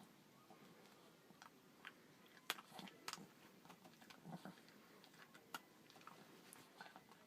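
Faint, sparse clicks and crunches of a dog chewing a treat, the sharpest about two and a half, three and five and a half seconds in.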